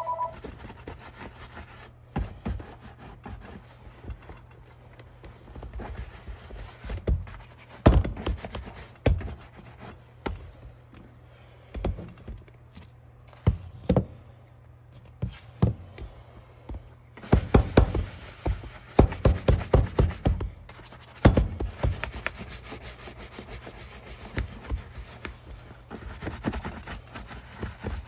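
Wooden-backed bristle brush scrubbing mink oil into the leather of a work boot, in quick strokes with a dense run of rapid strokes a little past halfway, mixed with sharp knocks as the boot and brush are handled.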